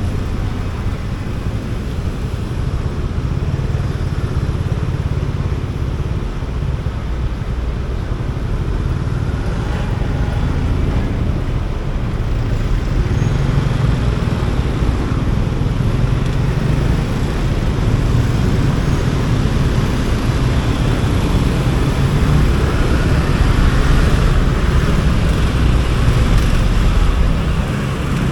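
Motorcycle riding in city traffic: the engine runs steadily under a rush of wind on the microphone, with the noise of other vehicles around it, growing a little louder in the second half.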